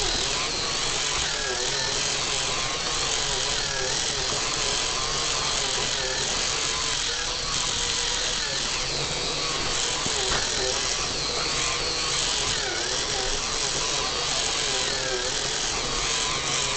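Small electric motor and plastic gears of a K'nex toy car whirring steadily, with a whine that wavers up and down in pitch.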